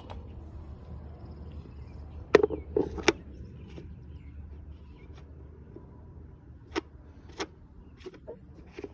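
Knocks and clicks from hands working on a lawnmower that is not running: three loud ones about two and a half to three seconds in, then several lighter ones near the end, over a low steady rumble.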